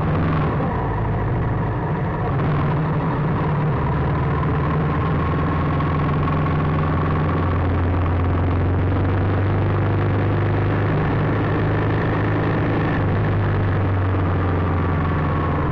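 Motorcycle engine running while riding in traffic, a steady low hum under road and traffic noise.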